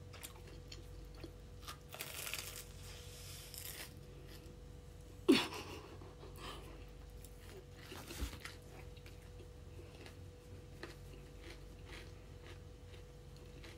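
Faint crunching and chewing of a Korean mozzarella corn dog's crispy crumb coating, with a longer stretch of crunching about two to four seconds in. A single short, sharp sound falling in pitch stands out about five seconds in.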